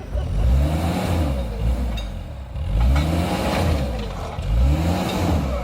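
A vehicle engine revved three times, each rev rising and falling in pitch.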